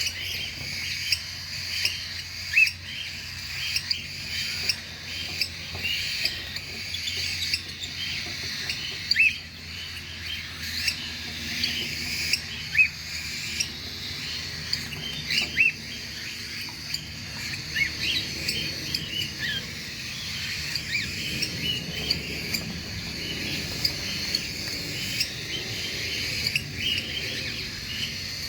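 A flock of cockatiels chattering: dense, continuous short chirps and quick whistled calls overlapping, with a few louder single calls standing out above the rest.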